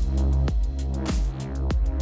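Background electronic music with a heavy bass and a steady drum beat.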